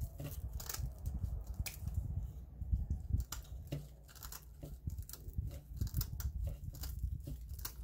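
Scissors snipping through dried craft moss in a rapid, uneven run of short crisp cuts.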